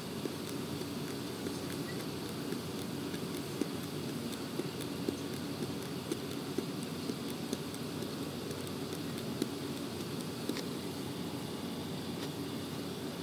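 A needle pricking through plastic wrap stretched over a Bluetooth speaker's perforated grille: faint, irregular small ticks, one or two a second, over a steady low rumble.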